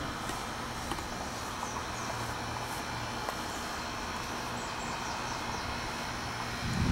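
Steady outdoor background noise with a low hum, and a few faint high bird chirps.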